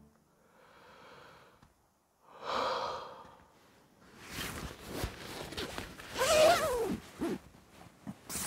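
A man's heavy sighs and breaths, then a drawn-out voiced groan falling in pitch about six seconds in, over a rustling, rubbing noise.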